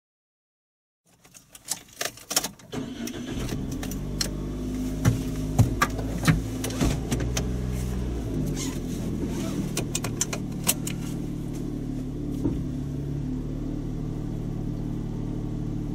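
A car engine starts, heard from inside the cabin, after a few clicks and knocks, and then idles steadily. More clicks and knocks sound over the idle.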